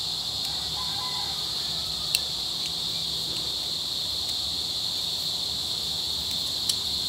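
Steady high chirring of crickets, with two sharp small clicks, one about two seconds in and one near the end.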